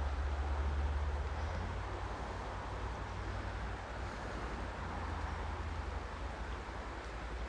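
Steady rushing noise of flowing creek water, with a low rumble of wind on the microphone.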